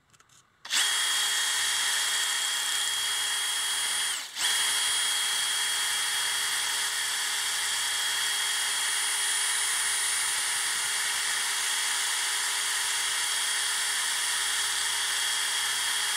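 DeWalt cordless drill spinning a homemade sanding drum, sandpaper wrapped on a dowel, inside the steel eye of an axe head: a steady motor whine over a sanding hiss. It starts about a second in, stops briefly near four seconds, then runs on steadily.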